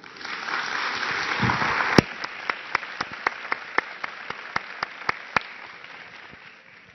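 Audience applause, strongest in the first two seconds and then dying away. From about two seconds in, one person's claps stand out sharp and close, about four a second, until they stop a second and a half before the end.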